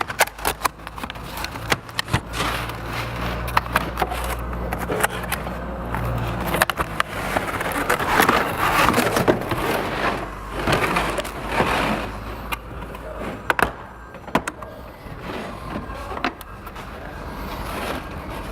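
Packaging being handled while a rotary hammer is unpacked from its box: rustling and scraping with many sharp clicks and knocks, busiest about halfway through.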